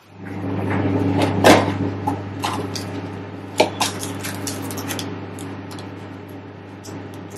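A cardboard tea box being opened and paper tea sachets handled, with rustling and sharp clicks and taps, the loudest about a second and a half in and again past three and a half seconds. Under it a steady low electrical hum starts at the very beginning and keeps going.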